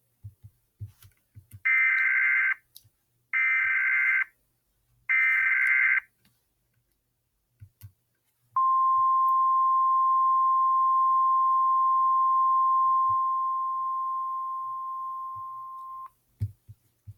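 Mock Emergency Alert System signal: three short bursts of warbling SAME header data tones, then a long steady electronic attention tone that fades somewhat before cutting off, announcing an emergency alert.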